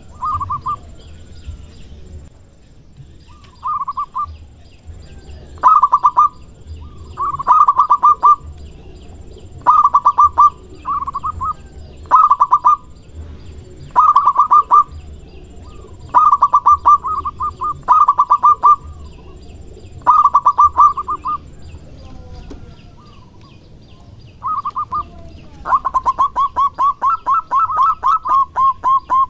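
Zebra dove (perkutut) singing: loud phrases of rapid staccato cooing notes, each under a second and all at much the same pitch, repeated every second or two. Near the end the phrases run together into one longer continuous string.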